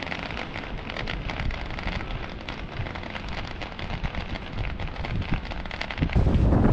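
Firecrackers going off, a dense, continuous crackle of many small pops. Near the end it gives way to a louder rumble of wind on the microphone.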